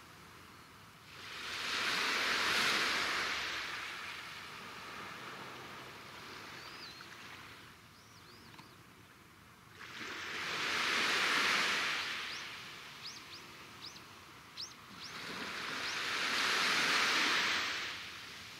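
Small sea waves washing onto the shore in three slow swells, each rising and fading over about three seconds. A few short, high bird chirps come between the swells.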